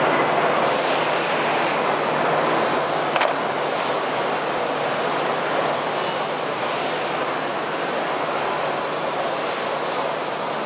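Steady mechanical din of a running injection moulding machine amid the noise of a busy exhibition hall, with a faint low hum and one sharp click about three seconds in.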